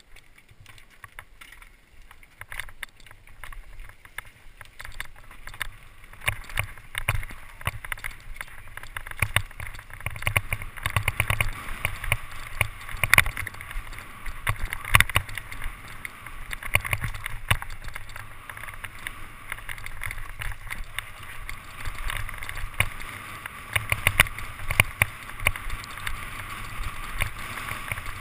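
Mountain bike descending a rough, rutted dirt trail, heard from a helmet-mounted camera: frequent rattles and knocks from the bike over roots, rocks and ruts, under a rushing noise that grows louder as the speed picks up.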